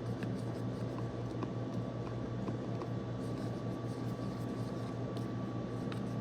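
A steady low hum with a thin steady tone above it, and a few faint scattered clicks.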